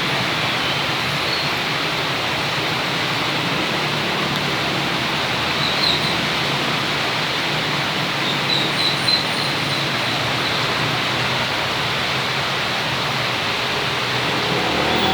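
Heavy rain pouring down in a steady, loud hiss, with a few faint high squeaks about six and nine seconds in.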